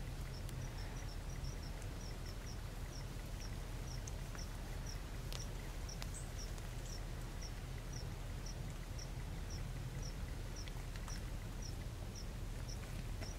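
Field ambience: a long, evenly spaced series of short high-pitched chirps, about two a second, over a low steady rumble, with a few faint ticks.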